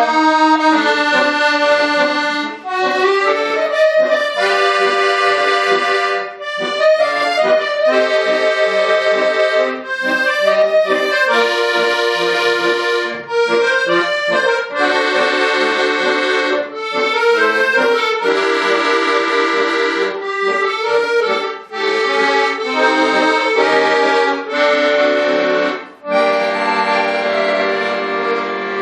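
Bayan (Russian button accordion) playing a piece in chordal phrases separated by short breaths of the bellows, ending on a long held chord that fades away.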